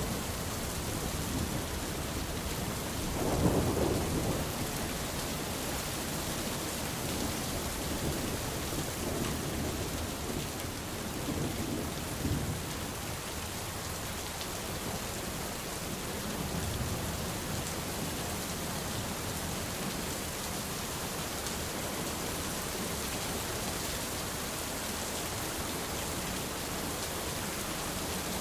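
Steady rain falling, an even hiss, with low thunder rumbling under it: loudest about three seconds in, with fainter rumbles around ten to twelve seconds in.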